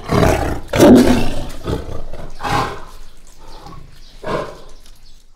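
Tiger roaring in a string of about six short roars, the loudest about a second in, growing weaker toward the end.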